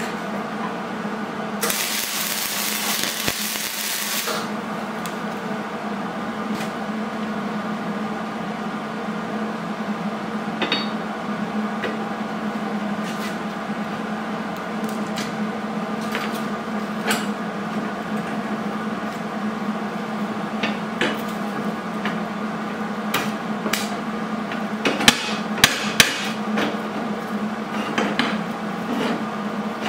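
MIG welder arc crackling and hissing for about two and a half seconds near the start as a tab is tack-welded to a steel plate. After that a steady hum runs on, with scattered metal clicks and knocks as the welded hinge parts are handled, and a few sharp knocks close together about 25 seconds in.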